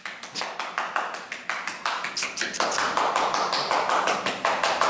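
Puppies' claws clicking and tapping quickly and irregularly on a bare concrete floor as several Rottweiler puppies scamper about. A rushing, rustling hiss joins in a little over halfway through.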